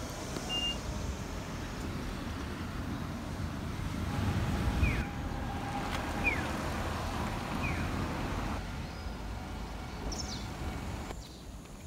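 Street ambience: a steady low rumble of wind on the microphone and road traffic, with a few short falling bird chirps in the middle.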